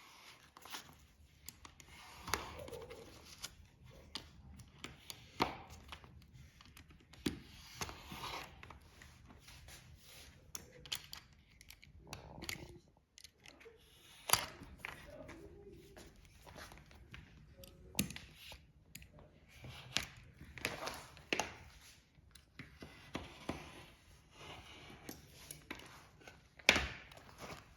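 Irregular handling noises: sharp clicks and knocks with rustling and scraping in between, from hands working on a fridge door's rubber seal.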